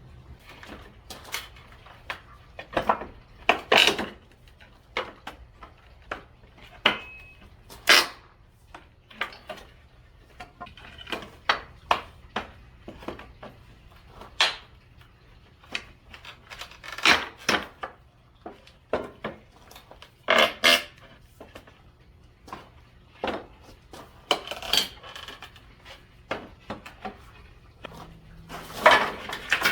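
A homemade steel-pipe pallet buster working boards off a wooden pallet: irregular sharp knocks and clanks of metal against wood and nails, a few each second at the busiest moments.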